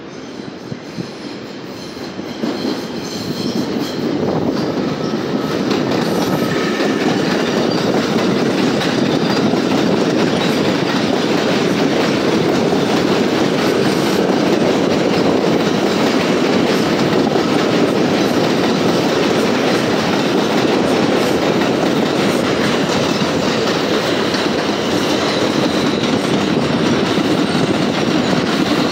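Bombardier R142 subway cars passing close by on the tracks, the noise of the train building over the first few seconds as it approaches, then running loud and steady as the cars go by.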